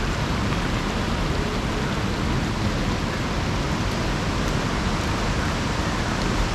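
Steady, even rushing water noise, with no distinct events standing out.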